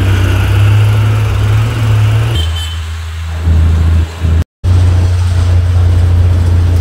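Steady low rumble of a moving city bus heard from inside: engine and road noise. It changes abruptly about two and a half seconds in and cuts out for a moment about four and a half seconds in, where clips are joined.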